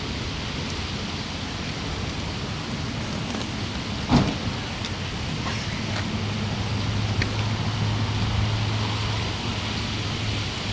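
Steady background road traffic, with a low hum setting in about six seconds in and one sharp knock about four seconds in.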